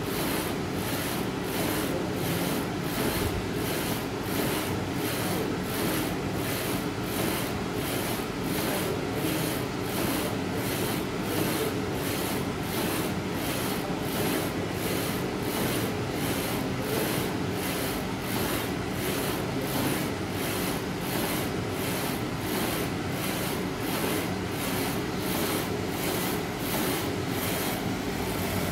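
60x90 UV flatbed printer running while it prints: a steady mechanical hum and whir, with a hiss that pulses evenly about twice a second.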